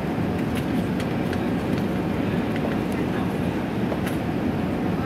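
Steady cabin noise inside an Airbus A380 on approach to land: a low, even rumble of airflow and engines, with a few faint clicks.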